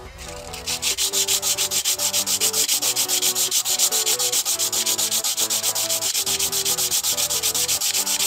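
The cut end of a short bamboo tube being rubbed back and forth on sandpaper by hand, sanding it smooth, in fast, even strokes that start about half a second in.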